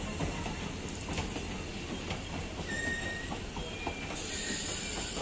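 ICF passenger coaches of a departing train rolling past, wheels rumbling and clicking over the rail joints, with a few short high-pitched wheel squeals.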